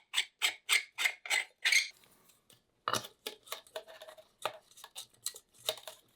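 A screw being driven by hand into a metal lamp bracket: rhythmic rasps, about four a second, that stop about two seconds in. Then a sharp click and a few lighter clicks and knocks of small metal parts being handled.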